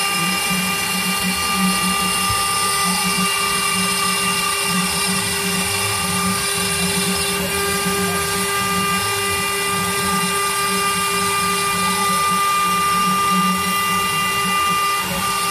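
Homemade CNC router carving a relief into wood: the spindle runs with a steady high whine over an uneven low drone as the bit cuts and the gantry moves.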